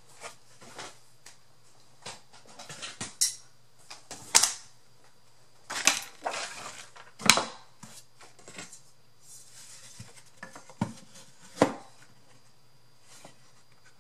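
Irregular knocks and clatters of a wooden box purse and a metal ruler being picked up, turned and set down on a craft desk, with a few sharper knocks among them and some paper rustling.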